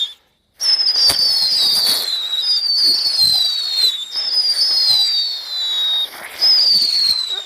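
Musical whistling firework going off: a string of high whistles, each falling in pitch over about a second and often overlapping, with sharp cracks mixed in. The sound drops out briefly just after the start.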